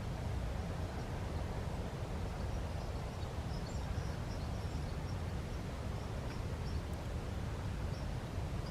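Steady low outdoor rumble, with a string of faint, short, high bird chirps in the middle.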